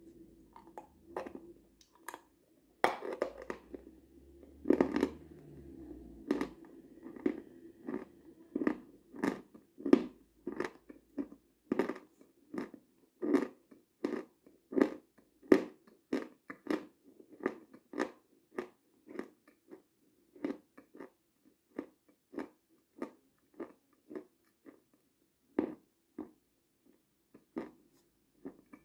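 Close-miked mouth sounds of a person eating a soft food: wet lip smacks and licks at about two a second, thinning out over the last several seconds.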